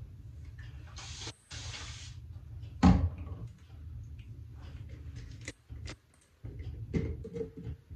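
A spray bottle spritzing water onto hair in a short hiss about a second in. Then a loud thump near three seconds, followed by soft handling clicks and rustles.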